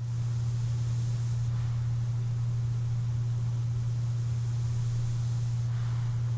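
CPAP machine running: a steady low hum with an even air hiss over it, and a sleeper's breath swelling faintly twice, about a second and a half in and near the end.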